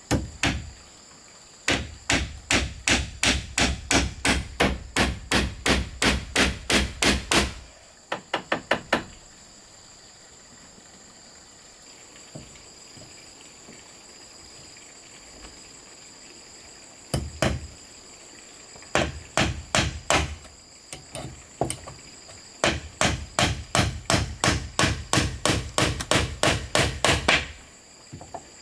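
Hammering: runs of rapid, evenly spaced blows, about three a second, stopping and starting several times, with a long pause in the middle. Insects keep up a steady high buzz throughout.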